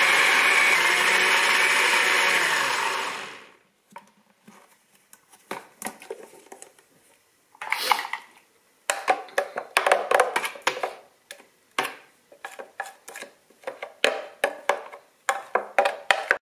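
Countertop blender with a plastic jar running steadily on high, grinding rolled oats and pumpkin into a thick pancake batter, then spinning down about three seconds in. After that come irregular knocks and clatter as a spoon stirs the thick batter in the plastic jar.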